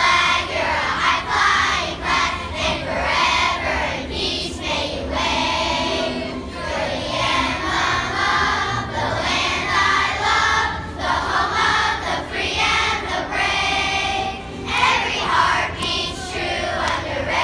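Large group of elementary-school children singing together in unison as a choir.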